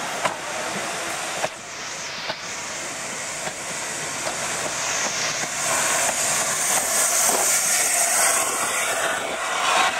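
LNER A4 Pacific steam locomotive No. 60007 Sir Nigel Gresley and its train passing close by at slow speed, with a few sharp clicks in the first couple of seconds, then steam hissing louder and louder as the locomotive draws level.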